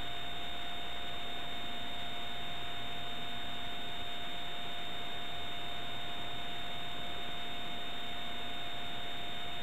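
Steady electronic hiss with two constant whining tones, one mid-pitched and one high, over a low hum. This is noise from the videotape transfer while no programme sound is playing.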